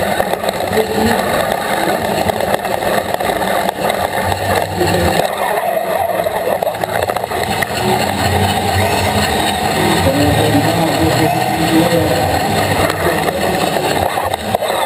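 FRC competition robot's electric drive motors and gearboxes running and the frame rattling, picked up loud and close by a camera mounted on the robot, over a steady arena din.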